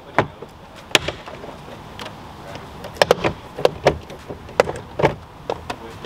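Plastic push-pin clips of a Toyota Supra's driver door panel popping loose as the panel is pulled off the metal door: a string of sharp snaps and clicks, about eight in all.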